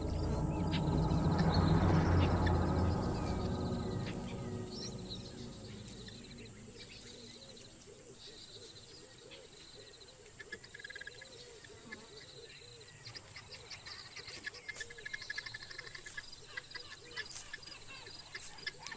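Background music swelling and then fading over the first few seconds, giving way to bush ambience: birds chirping and trilling, with scattered clicks and insect calls.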